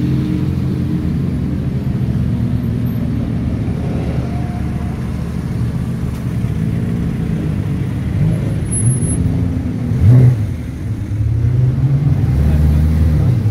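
Cars rolling slowly past at low revs, engines running under a steady low drone. About ten seconds in one engine gives a quick rev blip, the loudest moment. A fuller, steadier engine note comes in near the end as a Porsche 911 GT3 pulls up close.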